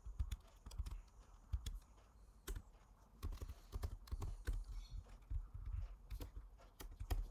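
Typing on a computer keyboard: irregular keystrokes in short runs with brief pauses between.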